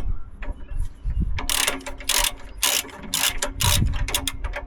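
Ratchet spanner being worked in quick strokes, each stroke a short rattling run of clicks, starting about a second and a half in.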